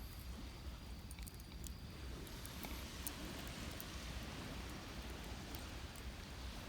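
Wood fire crackling, with scattered sharp pops, over the steady wash of surf on the beach, which swells about two seconds in. A thin high insect note runs underneath and fades out about two seconds in.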